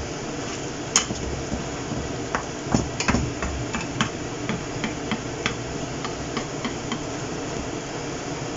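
Wooden spoon and wooden spatula stirring thick tomato sauce in a non-stick frying pan, knocking and scraping against the pan in irregular clicks over a steady hiss.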